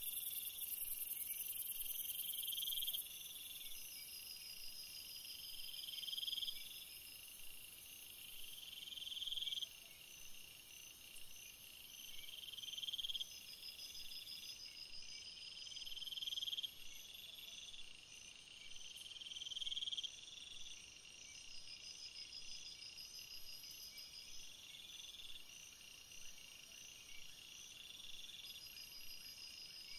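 Faint insect chorus: a high buzzing call that swells over a second or so and cuts off, repeating every three to four seconds, with runs of rapid high chirps in between.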